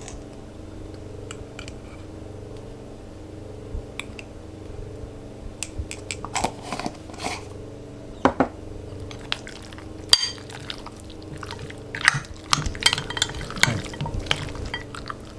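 A steel spoon clinking and scraping against a glass bowl as raw mutton pieces are stirred into a spice and ginger-garlic marinade. The clicks come scattered at first and grow busier in the last few seconds, over a steady low hum.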